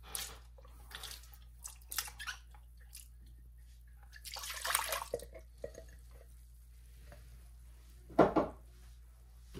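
Sourdough starter discard being tipped out of a glass jar into a glass mixing bowl: wet plops and drips as it slides out, with a splashy pour about halfway through and one louder knock near the end.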